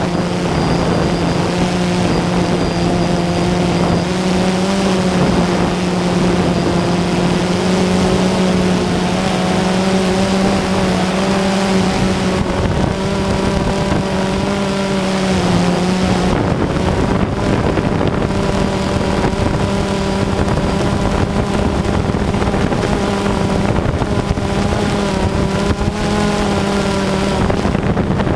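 Quadcopter drone's motors and propellers whining steadily, heard through its own onboard camera, with wind rushing on the microphone. The pitch wavers and shifts a little about halfway through.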